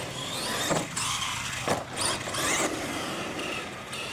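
Radio-controlled monster truck driving on concrete, its motor and gears whining up and down in pitch as the throttle changes, with tyre noise underneath. Two sharp knocks come about a second apart near the start.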